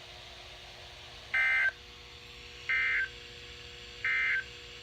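EAS/SAME end-of-message data burst from NOAA Weather Radio: three short, identical buzzy digital bursts about a second apart. They mark the end of the alert message.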